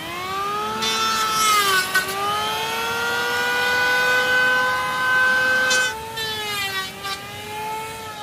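Electric power tool motor whining, its pitch sagging as it cuts into wood, with harsh cutting noise about a second in and again around six seconds in, then rising again as the load comes off.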